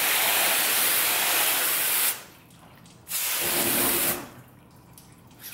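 Garden hose spray nozzle blasting water onto a car wheel and tire, rinsing it off. One spray of about two seconds cuts off, then a second, shorter spray about a second later.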